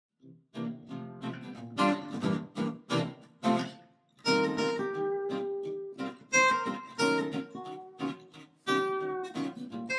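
Acoustic guitar intro music: a few sharp strummed chords, then picked notes ringing out from about four seconds in.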